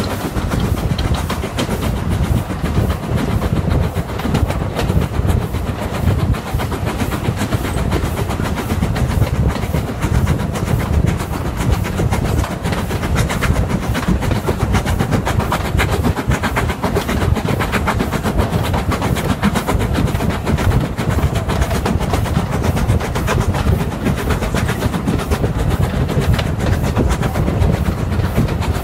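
LNER B12 4-6-0 steam locomotive No. 8572 running at speed, heard from a carriage window just behind it: a continuous rapid, rhythmic chuffing and clatter of exhaust and wheels over the rails, over a heavy rumble of wind and running gear.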